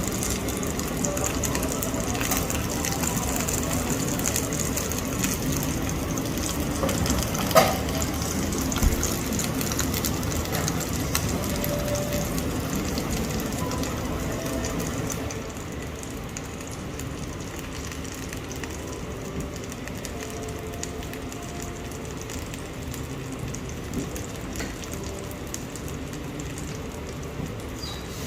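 Steady background hiss with faint indistinct voices and occasional small clinks, with one sharp knock about seven and a half seconds in; the background drops quieter about halfway through.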